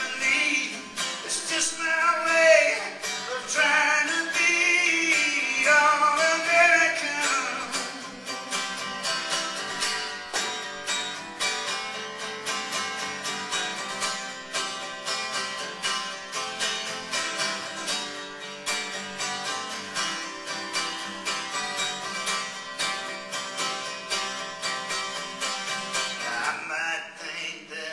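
A song played on strummed acoustic guitar. A voice sings over it for the first several seconds and again near the end, with a guitar-only stretch in between.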